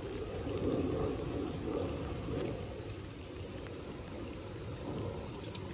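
Water trickling and gurgling into a shallow pool, a steady low rushing that eases slightly after the first couple of seconds, with a couple of faint ticks near the end.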